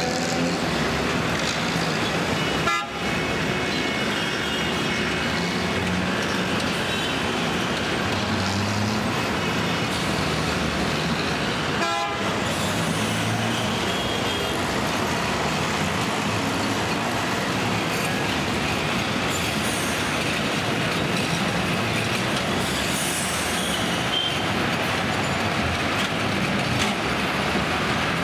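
Busy city street traffic: a steady din of bus and motor engines and road noise, with vehicle horns tooting now and then.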